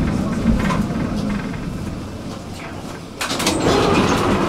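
Tram running with a low rumble that fades as it slows. About three seconds in, the doors open with a sudden burst of noise and clicks.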